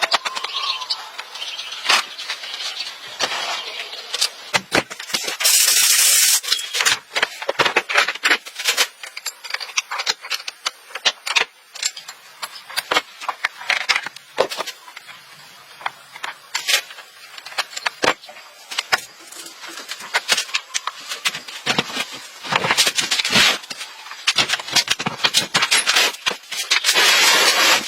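Workshop clatter of metal tools and parts being handled: many sharp clicks, knocks and rattles, with a short burst of hiss about six seconds in and another near the end.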